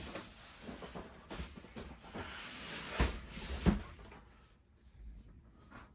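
Cardboard boxes being handled and opened: rustling and scraping with small knocks, and two sharper thumps about three seconds in, then it quiets down.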